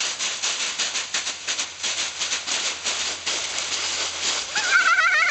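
Dry fallen leaves rustling and crackling as children thrash and toss them around in a leaf pile. Near the end a high-pitched voice cries out briefly.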